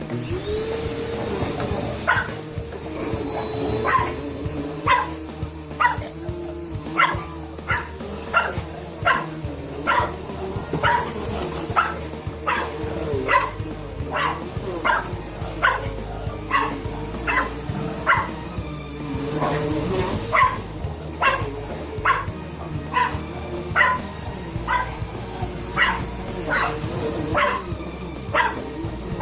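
A vacuum cleaner switching on and running with a steady whine, while a bulldog barks at it over and over, about once a second.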